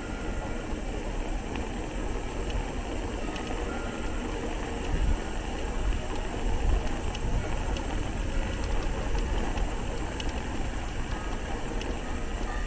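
City street traffic: vehicle engines running and a steady low rumble, with a few faint clicks.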